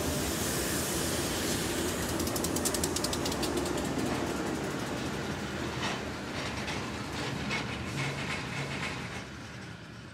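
Slow-moving freight train rolling by, its steel wheels clicking and clattering over the rail joints above a steady rumble. A rapid run of clicks comes a couple of seconds in and scattered clicks follow later, and the sound fades near the end.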